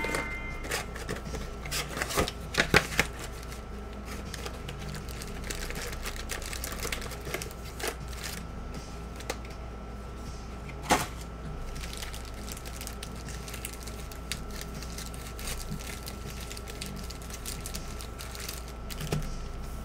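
Cardboard trading-card hobby box being opened by hand and its foil packs handled: a run of irregular clicks, taps and snaps of card stock, loudest about two to three seconds in and again around eleven seconds, over a faint steady high tone.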